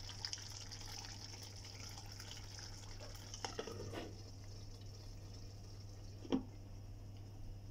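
Thick curry gravy bubbling and popping as it simmers in a pan. About three and a half seconds in, a glass lid clatters onto the pan, and after that the popping thins out; a single sharp clink of the lid near six seconds is the loudest sound.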